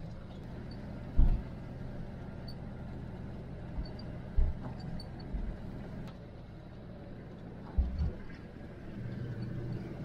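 Safari vehicle driving on a dirt track: a steady low engine and road rumble, with three short low thumps spread through it.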